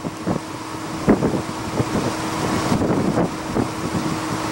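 Gusty wind buffeting the camera microphone in irregular rushes, over a faint steady low hum.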